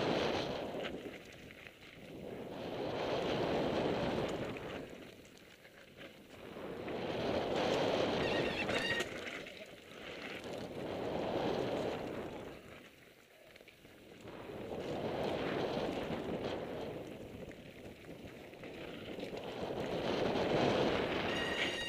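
Wind rushing over the camera microphone and tyres rolling on a dirt trail as a mountain bike descends, swelling and fading every few seconds with speed. A short high-pitched squeal about nine seconds in and again near the end, typical of the rear brake being grabbed.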